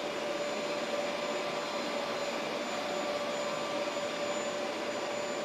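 Hoover Max Extract 77 carpet cleaner's suction motor running steadily, with an even rush of air and a steady whine, in spill pickup mode with the spin scrub brushes switched off.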